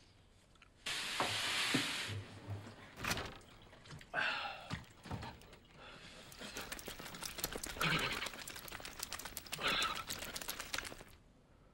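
A wet man shaking his head and body like a dog drying off: a rapid spatter of flung water and flapping, with short huffing breaths, that stops suddenly near the end. A burst of hissing comes about a second in.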